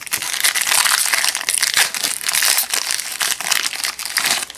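Plastic wrapper of a trading-card pack crinkling continuously as it is handled, a dense crackle of many small clicks lasting about four and a half seconds.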